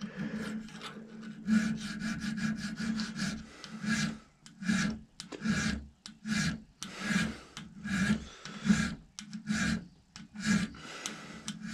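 Small hand file cutting a square slot across a steel muzzleloader barrel, filing out the slot for a barrel lug dovetail. The strokes are uneven and closely spaced at first, then settle about four seconds in into a steady rhythm of a little over one stroke a second.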